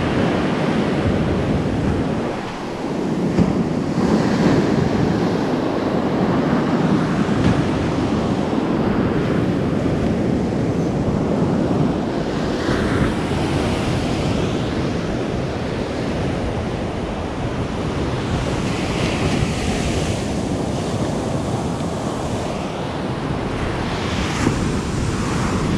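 Ocean surf breaking and washing up a sandy beach in steady, swelling rushes, with wind rumbling on the microphone.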